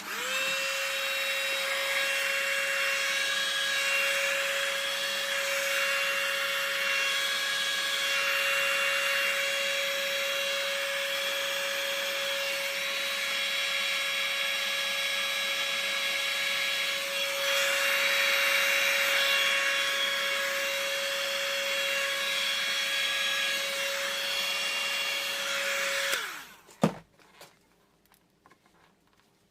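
A small high-speed power tool starts, its motor whining at one steady pitch under a rasping grinding noise that swells and eases, runs for about 26 seconds, then switches off. A sharp click follows just after.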